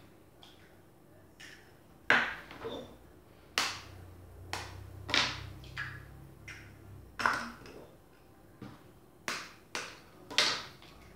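Eggs being cracked on the rim of a mixing bowl: about eight sharp taps and knocks at irregular intervals.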